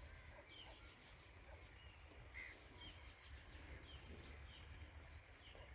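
Near silence: faint rural ambience of a steady, high insect trill, with short bird chirps scattered through it and a low rumble underneath.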